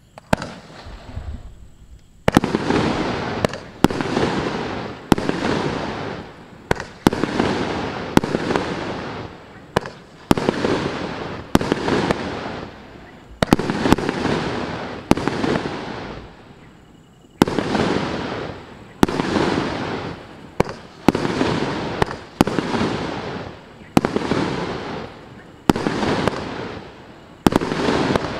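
A 30 mm consumer fireworks cake (MC098, 25 shots) firing shot after shot, about one every one and a half seconds. Each shot is a sharp bang followed by a tail that fades out.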